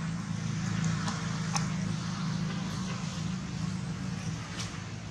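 Steady low hum of a motor running, with an even background hiss and two faint clicks.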